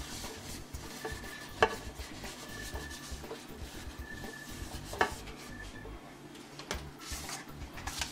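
A paper towel rubbing and scraping around the inside of a Cook's Essential nonstick air fryer basket, wiping out the grease left from cooking hamburgers. Two sharp knocks against the basket ring out about one and a half and five seconds in, with lighter clicks near the end.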